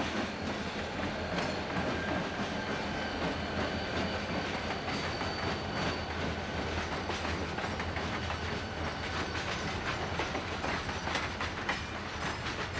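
Diesel freight locomotives, a GE B40-8 among EMD units, passing at close range: engines running with a steady low rumble, wheels clicking over rail joints, and a thin steady high whine. Near the end the empty coal hopper cars roll by.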